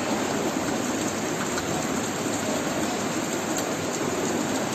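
Heavy rain pouring down steadily, a dense even hiss of downpour from a torrential rainstorm.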